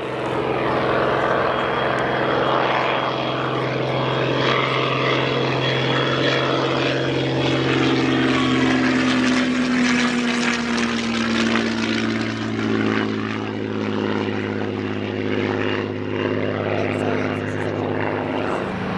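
Propeller-driven WWII warbird's piston aero engine running loud and steady, its engine note drifting lower through the middle.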